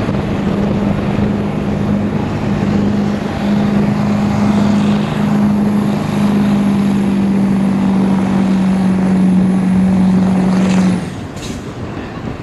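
Diesel pickup truck engine held at high, steady revs under heavy load while pulling a weight-transfer sled. About eleven seconds in it cuts off sharply as the throttle is lifted at the end of the pull, and a high whistle over it falls away at the same moment.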